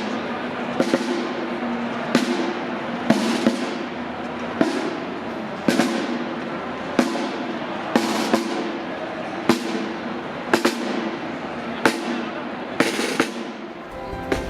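Slow processional music: a loud, ringing percussion strike about once every 1.2 seconds over sustained low chords. Near the end the beat stops and different music with a heavy bass comes in.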